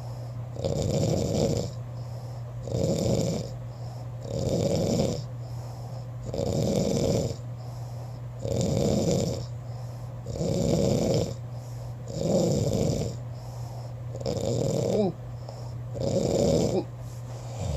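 Snoring in a steady rhythm: nine snores about two seconds apart, each lasting about a second, over a steady low hum.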